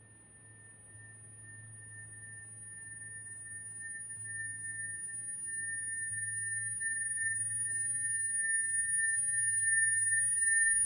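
Steady high-pitched electronic ringing tone at two pitches, growing steadily louder, over a faint low hum.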